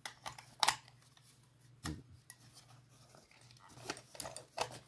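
Handling noise: a few short clicks and rustles from a small metal tin of screwdriver bits being put back into a tool belt pouch and the pouch being rubbed.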